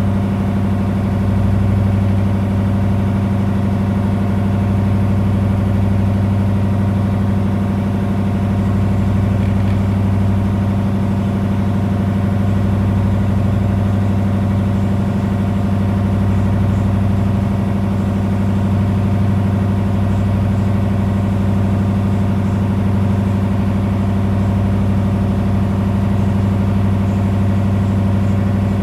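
A boat's engine running steadily under way, a constant loud low drone that does not change in pitch or level.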